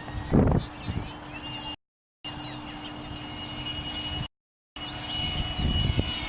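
RC Sniper jet's electric ducted fan in flight, a steady high whine, with gusts of wind on the microphone near the start and near the end. The audio drops out completely twice.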